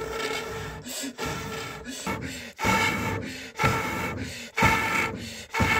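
Repeated rubbing or scraping strokes, about one a second in the second half, over a steady ringing tone.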